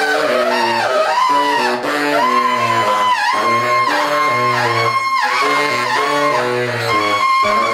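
Tenor and baritone saxophones playing together: a held high note that slides up and down in glissandos over a repeating pattern of low baritone notes.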